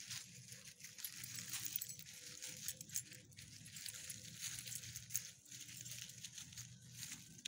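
Dry fallen leaves crunching and rustling under the paws of small dogs walking and sniffing about on leashes, an irregular run of crackles and rustles.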